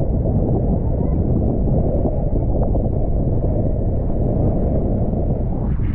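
Wind buffeting the action camera's microphone while riding a wing foil at speed: a steady low rumble.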